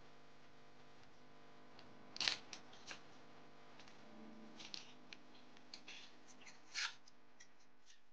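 A small alcohol prep pad sachet being handled and torn open: scattered faint crinkles and short rips, the loudest about two seconds in and another near seven seconds, over a faint steady hum.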